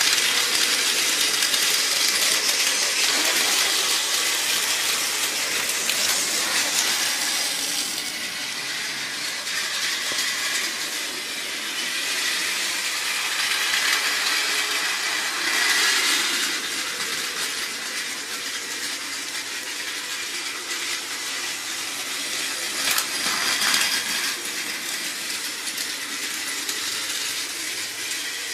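Battery-powered toy trains running on plastic track: small electric motors whirring with a thin high whine, and a steady rattle from the gears and wheels. It swells briefly about halfway through and again later on.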